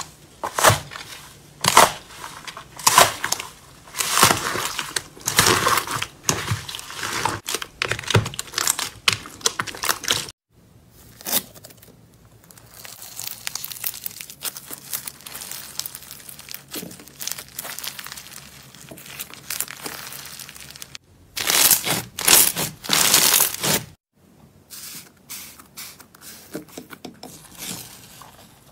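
Foam-bead slime (floam) being squeezed and pressed by hand: crunchy crackling bursts of the tiny beads, about one a second, then a quieter stretch of crackling, with a second loud crackly run later on. Near the end, slime peeling off a glass dish with a soft sticky crackle.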